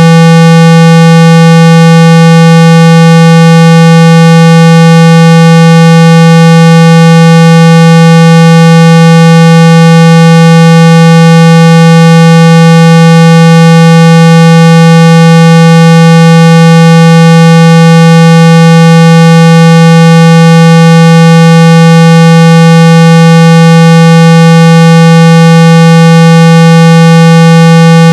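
A steady, very loud 165 Hz electronic tone with weaker higher overtones, held without change: a speaker-cleaning tone played to vibrate water and dust out of a phone speaker.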